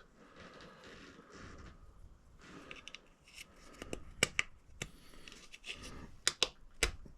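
Clips being slid onto a windscreen mounting bracket by hand: faint rubbing and handling, then a handful of sharp clicks in the second half as they go on.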